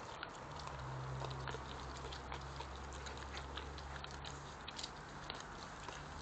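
European badgers foraging and eating on a lawn: many small irregular clicks and crunches of chewing, over a steady low hum.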